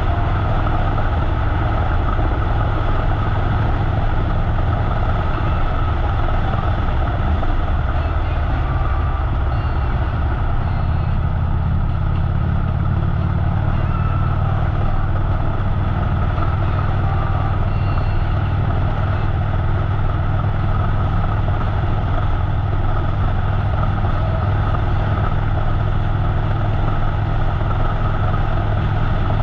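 Harley-Davidson V-twin motorcycle engine running steadily on the road under wind and road noise; the engine note shifts about ten seconds in.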